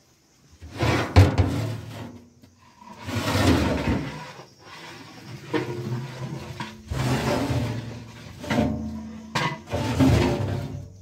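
Lids of large aluminium cooking pots scraping and knocking against the rims as they are shifted and lifted, in several uneven goes with a light metallic ring. The loudest knock is about a second in.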